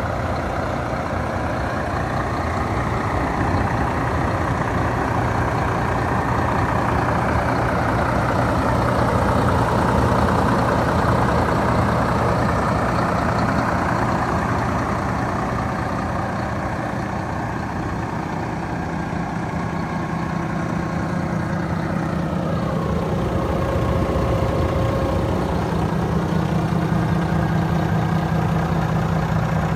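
Volvo FM450 tractor unit's 13-litre straight-six diesel idling steadily.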